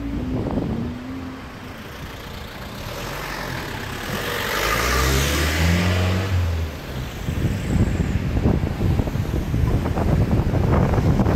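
A car passes on the street, its engine and tyre noise swelling and fading over a few seconds. From a little past halfway, gusting wind rumbles and buffets on the microphone.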